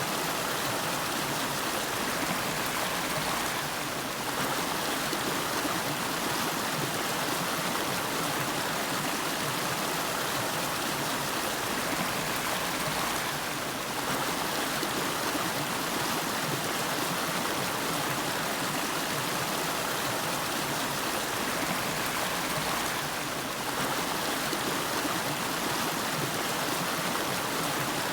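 River water flowing over rocks: a steady, even rushing.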